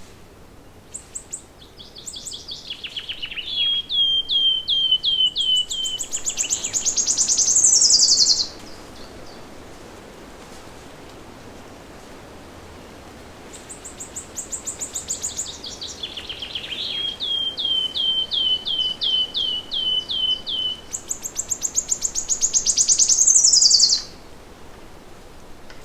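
A songbird sings two long songs about ten seconds apart, each a run of quick repeated notes that ends in a fast, high trill falling away at the close. A steady soft hiss of background lies beneath.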